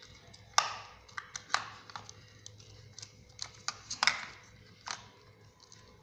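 Irregular sharp plastic clicks and knocks as a rechargeable battery pack and its plug are pressed and fitted into the plastic battery bay of a remote-control rock crawler truck. The loudest clicks come about half a second in and about four seconds in.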